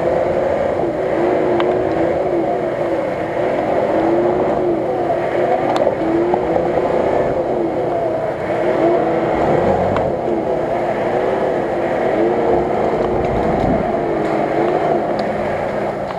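Nissan Patrol's engine running hard as the truck works through deep mud, its revs rising and falling over and over.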